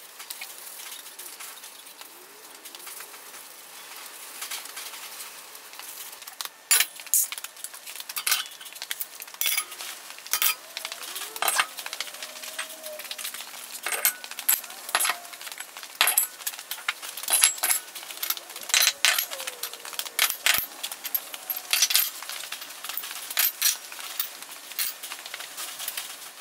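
Irregular metallic clinks and clanks as steel barbells and iron weight plates are knocked against and hung on steel wall-mounted storage pegs, the knocks coming thick and fast in the second half.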